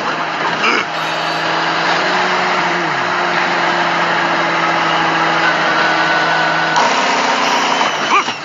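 Steady vehicle engine running with road noise and a low hum, a brief falling tone about three seconds in, and an abrupt change in the sound near the end.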